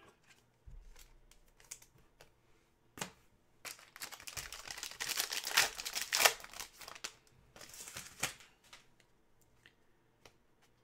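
Plastic foil wrapper of a Panini Prizm football card pack crinkling and tearing as it is ripped open. The main burst of crackling comes about four to six and a half seconds in, with a shorter one near eight seconds, among scattered clicks and taps.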